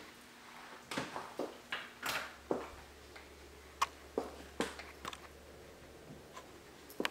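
Scattered light knocks and clicks of footsteps on a tiled floor and handling of a handheld camera as it moves about a small room, with a faint low hum from about two seconds in until near the end.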